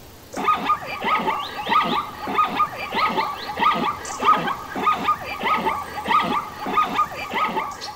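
Plains zebra calling in a rapid run of high, yelping barks, about three a second, without a break.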